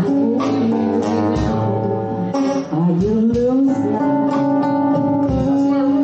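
Live band playing: guitar with drums, a long held melody line that slides up about halfway through.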